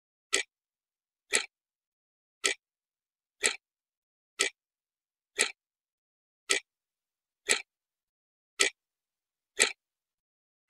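Countdown timer ticking, one short sharp tick a second, with dead silence between the ticks.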